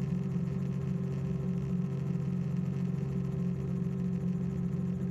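Steady engine drone of a small aircraft heard inside the cabin, a constant low hum with a few fixed tones and no change in pitch.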